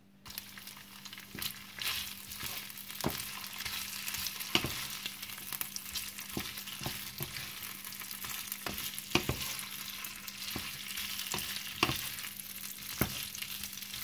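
Strips of pork roll (pâté de porc) sizzling in oil in a nonstick frying pan, the sizzle starting abruptly just after the start. A wooden spatula stirs them, knocking and scraping against the pan at irregular moments.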